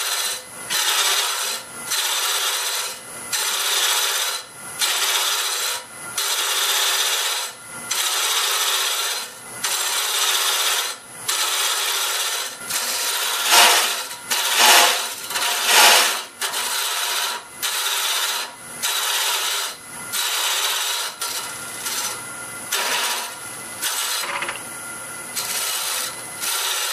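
Cutter of a Jamieson boring bar hollowing the inside of a spinning mesquite vessel on a wood lathe. It makes a scraping cut in repeated strokes, about one every second and a half, with a few louder cuts about halfway through.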